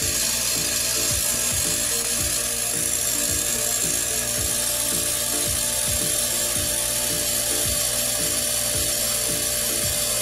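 Sealed compressor from a window air conditioner running steadily with a constant hum, pumping air into a one-gallon tank as the pressure builds past 20 PSI.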